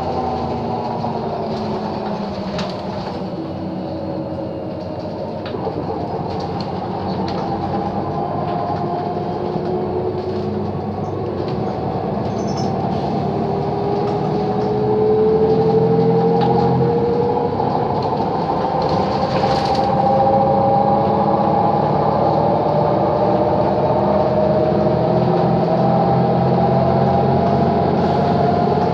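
Interior of a Mercedes-Benz O 530 Citaro city bus under way: engine and drivetrain whine with body rattles. The whine falls in pitch at first as the bus slows, then climbs steadily from about ten seconds in as it pulls away and accelerates, growing louder about halfway through.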